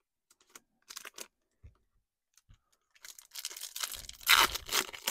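Foil trading-card pack wrapper being handled and torn open: a few faint rustles, then a louder stretch of crinkling and tearing over the last two seconds.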